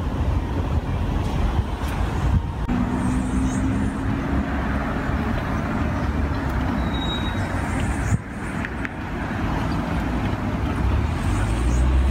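Steady road traffic noise: a constant low rumble and hiss of passing vehicles, with an engine hum in the first half.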